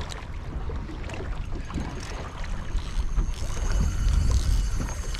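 Wind buffeting the microphone over choppy water slapping against a small boat, with scattered small knocks; the rumble grows louder for a couple of seconds near the end.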